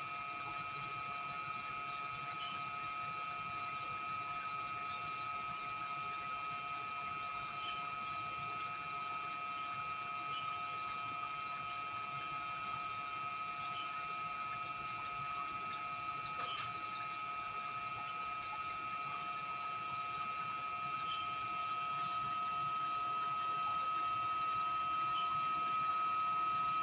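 Small pond pump running steadily: a constant hum with a high, thin whine over water noise, with faint short chirps every few seconds. It grows slightly louder over the last few seconds.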